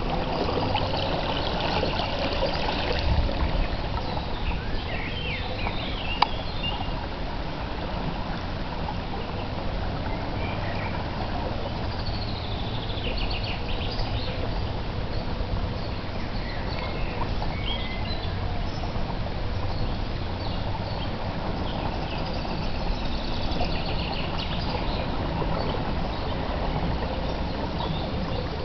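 A wheelchair's wheels pushing through shallow floodwater, with a steady swishing and trickling of water. Birds chirp now and then.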